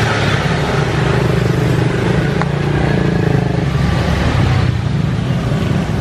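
A motor running with a steady low hum, swelling slightly in the middle and easing off near the end.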